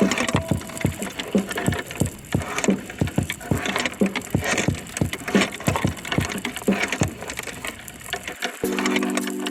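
Irregular knocks and clicks, about two or three a second, with a crackle between them, heard underwater through a GoPro's waterproof housing strapped to a crab trap on the sea floor.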